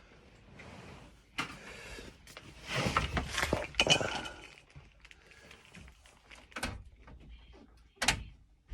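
Knocks and clicks with a loud scraping rustle about three to four seconds in, from handling things inside a small room.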